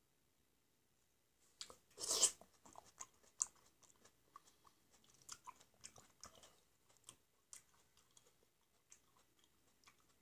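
Close-up mouth sounds of eating peeled black grapes: starting about a second and a half in, a loud wet bite, then irregular soft clicks of chewing.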